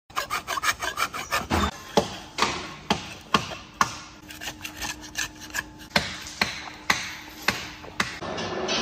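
Hand scraper scraping caked old grease and dirt off an excavator's toothed swing (slewing-ring) bearing: a quick run of short strokes, about six a second, for the first couple of seconds, then sharper single scrapes roughly every half second.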